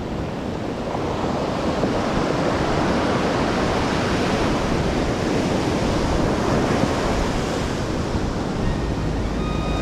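Ocean surf washing onto a beach, a steady rushing noise, with wind rumbling on the microphone.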